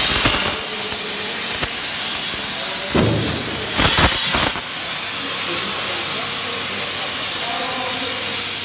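A 100 A CNC plasma cutting torch cutting steel plate: a steady, loud hiss, with brief louder surges about three and four seconds in.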